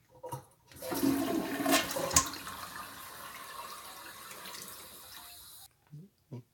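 Toilet flushing: a rush of water that starts about a second in, is loudest at first, then settles to a steady hiss that cuts off abruptly near the end.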